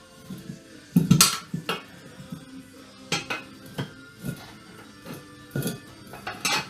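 A short steel tire iron clinking and knocking against the wheel rim as it levers the new quad tire's bead over the rim, in a string of irregular metal knocks with some ringing between them.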